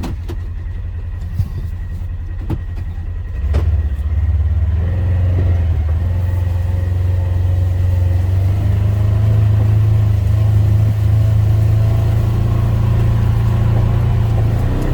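Polaris Ranger 1000 XP side-by-side's twin-cylinder engine running while driving, picking up speed about four seconds in and then holding a steady drone. A few sharp knocks come in the first four seconds.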